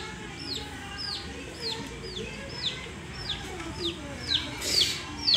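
Electronic toy chick peeping over and over, each peep a short falling chirp, about two a second at an even pace. A brief rattle sounds near the end.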